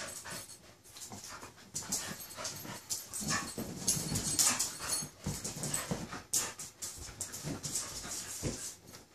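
Two dogs play-wrestling: panting and quick, irregular scuffling and mouthing noises, loudest around the middle.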